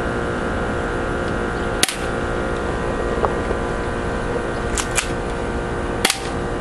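Stinger P311 airsoft pistol being fired: a sharp snap about two seconds in, a quick pair near five seconds and another just after six, over a steady background hum.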